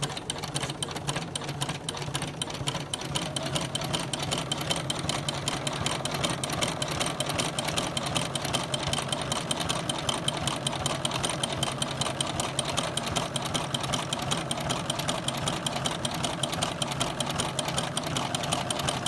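Domestic sewing machine running steadily at moderate speed, sewing a zigzag stitch with an overlock cutter presser foot whose blade trims the fabric edge as it stitches.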